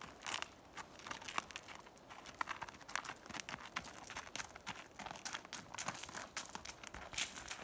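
A horse's hooves crunching on gravel as it walks, an irregular run of sharp crunching steps.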